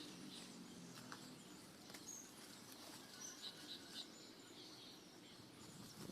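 Faint outdoor ambience with small birds chirping in short, quick runs of high notes, and a couple of light clicks.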